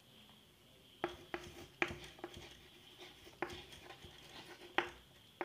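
Handwriting sounds: a scattered series of light taps and short strokes of a pen or marker as figures are written down, over a faint room hum.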